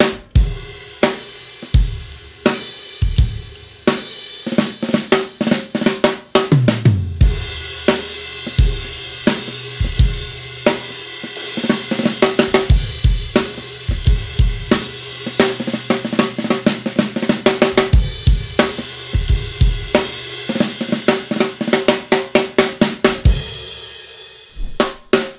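Acoustic drum kit with Paiste cymbals played as a groove built from double drag taps: pairs of quick snare grace-note drags leading into accented taps, over bass drum, hi-hat and cymbals. The playing is continuous, with a short lull near the end.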